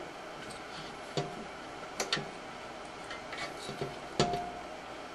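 Scattered light clicks and taps as fingers work a rubber drive belt onto the motor pulley inside a Lortone rock tumbler's sheet-metal base. There are about six, irregularly spaced; the loudest comes about four seconds in, and a couple ring briefly.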